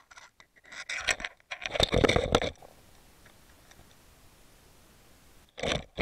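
Scraping and rubbing noises picked up by an underwater camera on a rocky riverbed, in two scratchy spells: one about a second in lasting a couple of seconds, another starting near the end.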